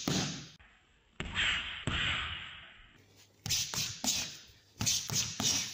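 Punches landing on boxing focus mitts during pad work: a string of sharp hits, some in quick pairs, each with a short hall echo.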